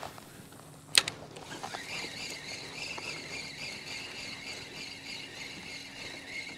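A sharp click about a second in, then a steady high-pitched whine with a faint low hum underneath: the kayak's drive running.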